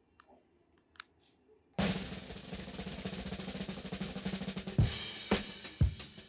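Drum music: near silence for the first couple of seconds, then a snare drum roll starts abruptly and leads into a beat with heavy kick-drum hits about twice a second.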